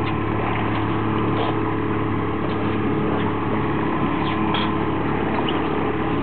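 Fishing boat's engine running steadily, with the wash of water along the hull.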